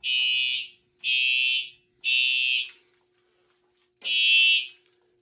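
Simplex TrueAlert fire alarm horns sounding the temporal code-3 evacuation pattern: three loud half-second-plus blasts about a second apart, a pause, then a fourth blast that starts the next round, after which the horns fall silent.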